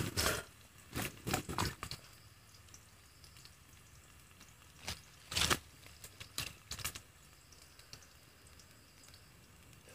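Scattered sharp cracks and clicks of dry sticks and twigs being handled and pushed into a small wood fire, a cluster about a second in and another around five to seven seconds.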